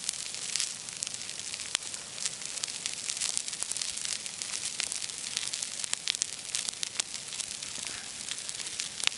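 Wood bonfire burning, a steady hiss with frequent sharp crackles and pops.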